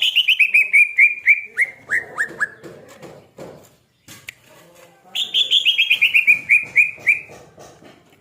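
Green leafbird (cucak ijo) singing two runs of rapid notes that fall steadily in pitch, each about two seconds long, the second starting about five seconds in. The bird is in the state its keeper calls 'OB', over-aroused (over birahi).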